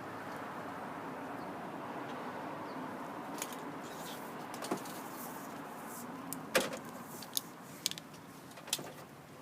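Jeep Wrangler 4.0-litre straight-six engine running steadily, with several sharp clicks and taps over it, the loudest about two-thirds of the way through.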